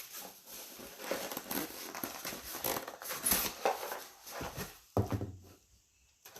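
Plastic crinkling and rustling as trading cards in their plastic holders are handled and shuffled, a run of irregular crackles that stops about five and a half seconds in.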